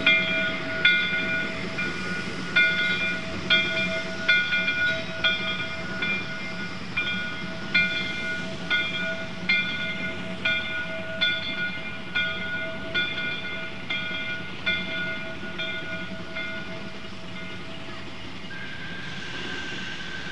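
A railroad bell ringing steadily, about one stroke a second, over the low rumble of a train. The ringing stops near the end, and a faint steady high tone follows.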